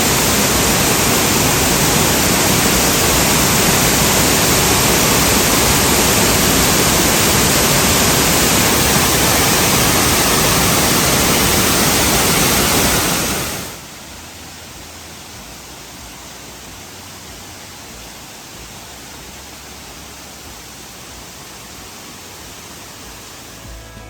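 Apple Orchard Falls in heavy flow, a loud, steady rush of falling water and spray. A little over halfway through it drops sharply to a much quieter, steady rush.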